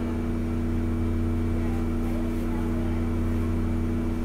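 Kobe New Transit 3000 series automated guideway train standing still at a station: a steady electrical hum with air-conditioning running, no rise or fall in pitch.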